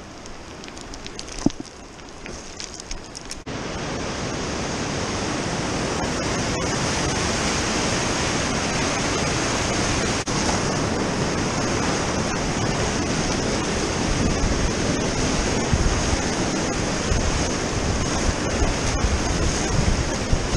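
Whitewater rapids rushing through a narrow rock canyon: a loud, steady rush that comes in suddenly about three and a half seconds in and builds a little. Before that there is quieter rustling with a few sharp knocks.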